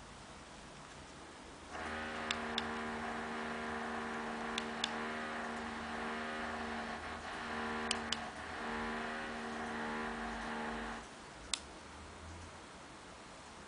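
Buttons on a small plastic handheld remote clicking as they are pressed, mostly in quick press-and-release pairs, four times. From about two seconds in until about eleven seconds, a steady hum with several pitches sounds over them, its source not shown.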